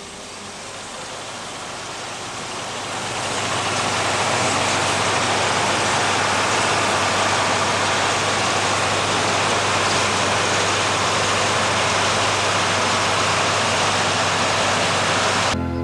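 Combine harvester running while cutting grain: a steady wash of engine and machinery noise over a low hum, growing louder over the first few seconds and then holding steady.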